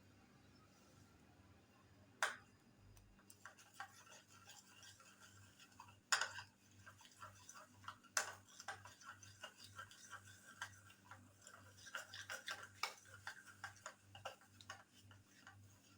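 A spoon stirring and scraping a thick honey and powder paste in a bowl: a few sharp knocks against the bowl, then a dense run of small clicks and scrapes.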